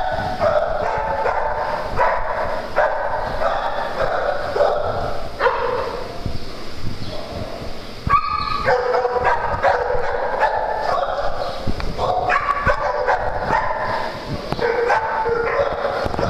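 Several dogs barking, their voices overlapping almost without pause, with a couple of brief lulls.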